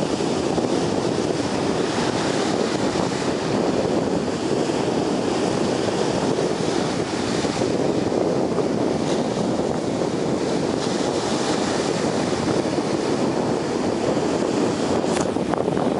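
Steady wash of ocean surf breaking, with wind buffeting the microphone.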